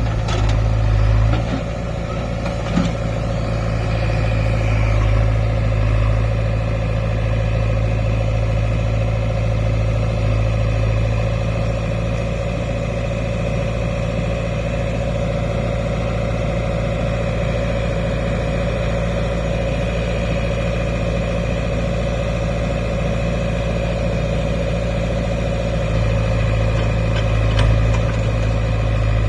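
Heavy diesel earthmoving machinery running steadily, with a steady whine over the engine drone. The engine works harder for about the first second and again for the last few seconds.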